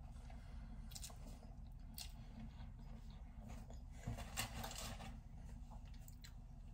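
Faint chewing of a mouthful of sandwich with the mouth closed: soft, scattered wet clicks and squishes, a little busier about four seconds in.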